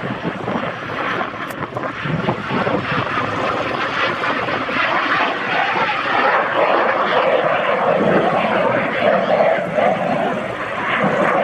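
A propeller-driven aircraft's piston engine drones as it flies by, growing louder through the middle.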